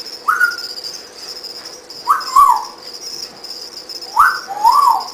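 A dog whining: three short high whines about two seconds apart, the last two sliding down in pitch.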